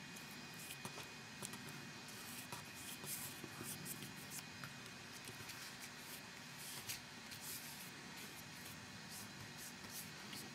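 Paintbrush strokes swishing back and forth across cardstock, laying on wet acrylic paint: faint, irregular brushing, many strokes.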